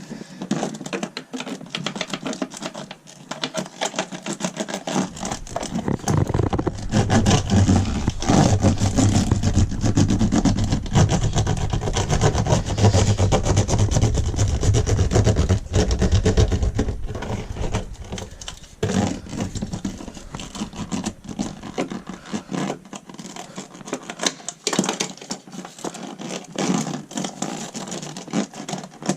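Hands and tools working bitumen sound-deadening mats onto a car's floor: steady scraping, rubbing and clicking, heavier and deeper for about twelve seconds in the middle.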